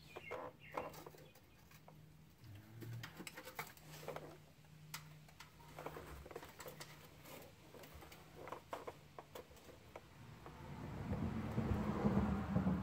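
Scattered light clicks, taps and scrapes of hands working on a car's underbody and rear brake line. Near the end a louder rushing noise builds up.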